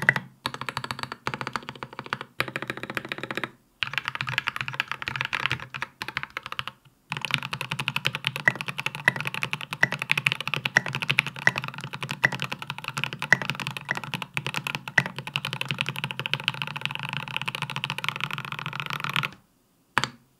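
Fast typing on a Space65 custom mechanical keyboard with Polaris Gray switches and SA-profile keycaps: a quick, dense run of keystroke clacks with a few brief pauses. It stops abruptly near the end, followed by a single last click.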